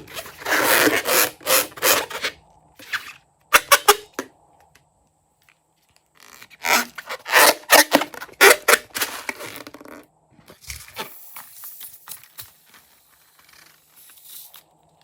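Squeaking and scraping from balloons and slime being handled, in two loud stretches with a couple of sharp clicks between them, then softer crackling near the end.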